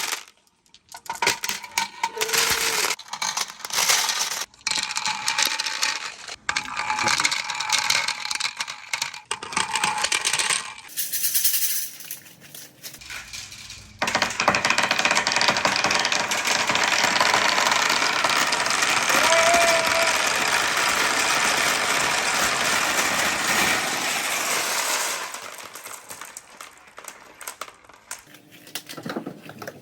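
Glass marbles clicking and rattling down a wooden marble run. About fourteen seconds in, a dense stream of marbles sets in as a continuous clatter for around eleven seconds, then thins back to scattered clicks.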